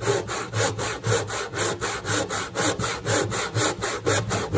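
Spear & Jackson brass-backed tenon saw cutting all the way through a piece of wood by hand, in steady, even strokes about two a second.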